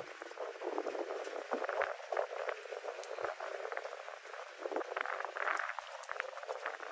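Rain pattering: a dense, uneven spatter of drops with many small irregular taps.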